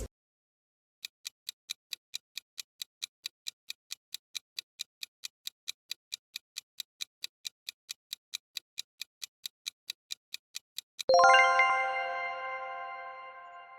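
Quiz countdown-timer sound effect: a clock ticking evenly at about four ticks a second for about ten seconds, then a bright chime rings out and slowly fades, marking time up and the answer reveal.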